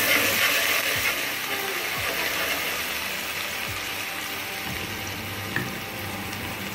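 Ginger-garlic paste sizzling in hot cooking oil with browned onions in an aluminium pot. It is loudest at first and slowly dies down.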